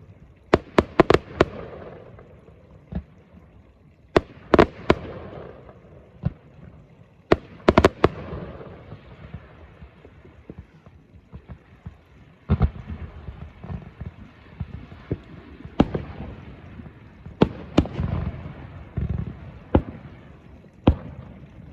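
Fireworks going off: sharp bangs, often two to four in quick succession, with crackling and rumbling between them. Thicker stretches of low crackle and rumble come about halfway through and again near the end.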